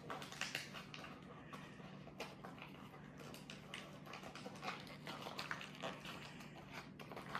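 Faint scattered clicks and rustling of small plastic building-kit parts and packaging being handled, over a steady low hum.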